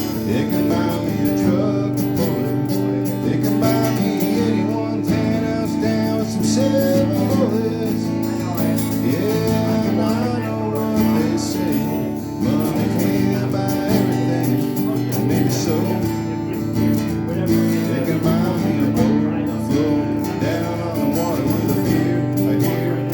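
Country music instrumental passage: acoustic guitar strumming under a melodic lead line with the band.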